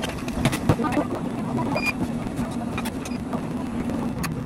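Behind-the-counter café work: scattered light knocks and clicks of cups and utensils over a steady low machine hum, with a short high electronic beep near the middle.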